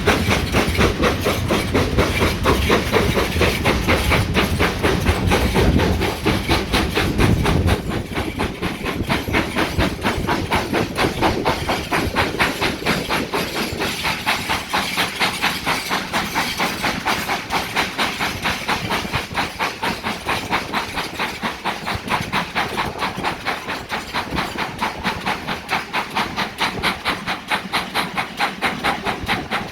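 Steam locomotive working hard, its exhaust beating in a steady, even rhythm with a hiss of steam. A heavier low rumble under it eases off about a third of the way through.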